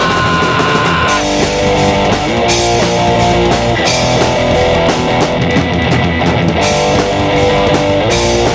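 Rock band playing: electric guitar over bass guitar and a drum kit.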